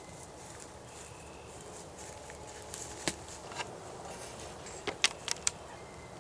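Quiet outdoor background with a few sharp clicks or snaps: one about three seconds in, a fainter one just after, and a quick run of four about five seconds in.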